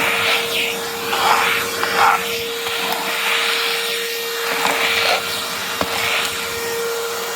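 Craftsman V20 20-volt cordless 5-gallon wet/dry vac running at full suction, a steady motor whine over the rush of air. Scratchy bursts come and go as the crevice tool picks up dried mud and grit.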